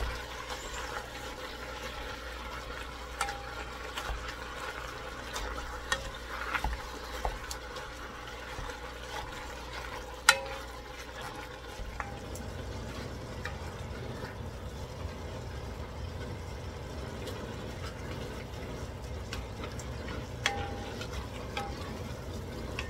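Ground beef browning in a pot: a steady sizzle, with occasional clicks of a utensil stirring against the pot and one sharper knock about ten seconds in.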